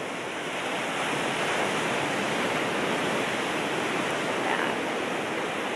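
Ocean surf breaking on a sandy beach below, a steady rushing wash of waves.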